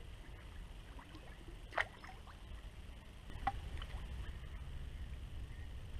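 Shallow river water sloshing and splashing around a wading angler landing a large wels catfish by hand, over a low steady rumble. Two short, sharp splashes stand out, one about two seconds in and one about three and a half seconds in.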